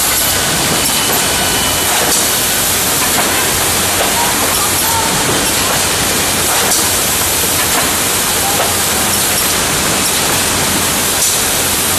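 Wrap-around case packer running: a loud, steady rush of machine noise with faint clicks now and then.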